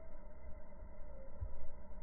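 Low rumble with a soft thump about one and a half seconds in, over a faint steady hum.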